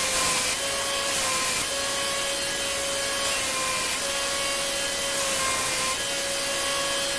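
Electric grinder running steadily while a heat-treated stainless steel knife blade is cleaned up on it: a motor hum with a steady hiss of abrasive on steel, the pitch dipping slightly a few times as the blade is pressed in.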